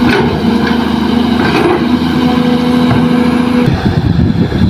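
Kobelco SK200 hydraulic excavator at work: its diesel engine and hydraulics run with a steady hum, with a few short knocks. About three-quarters of the way through, the sound changes abruptly to a rougher, lower diesel engine rumble.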